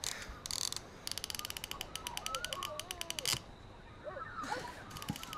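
Fishing reel clicking fast as its handle is cranked to wind in line, in a long run and then a shorter one near the end. A short hiss comes just before, and thin wavering squeaks sound over the clicking.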